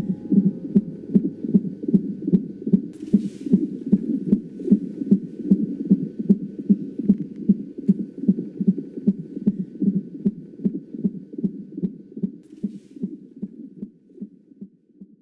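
Recorded heartbeat: a fast, even train of soft, low thumps that fades out near the end.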